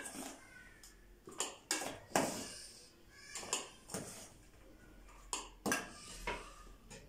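A metal spoon scraping and knocking in a stainless steel bowl of minced garlic and against a jar as the garlic is spooned in, in a series of irregular clinks and scrapes.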